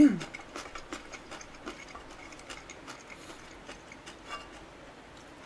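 Faint, irregular soft clicks and ticks of eating: a wooden spoon scooping chicken and scorched-rice porridge from a pot, with close-miked chewing.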